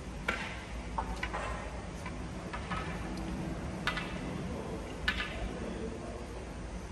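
Light, sharp clicks or taps at irregular intervals, about eight in all, each with a short ring, over a steady low background hum.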